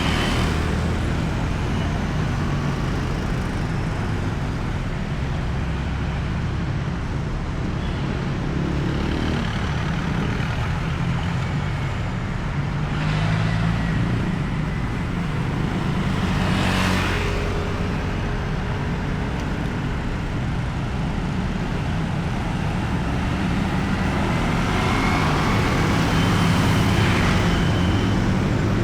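Busy road traffic: a steady rumble of car and motorcycle engines and tyres on asphalt, with individual vehicles passing close by several times.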